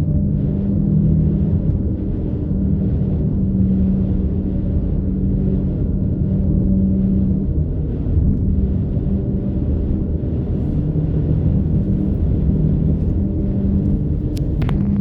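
Steady low drone of a vehicle driving at speed, heard from inside the cab: engine and road noise with a constant hum. A couple of sharp clicks near the end.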